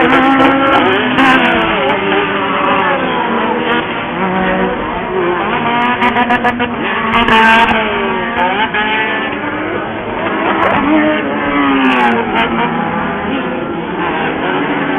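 Several off-road race buggies' engines revving up and down as they race, the pitches rising and falling and overlapping.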